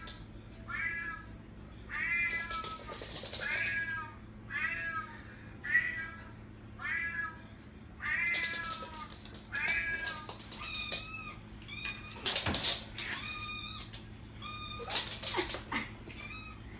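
Cat meows repeating about every three quarters of a second. About ten seconds in they turn into higher, thinner, evenly pitched mews coming more quickly. A few short rushes of noise come between them.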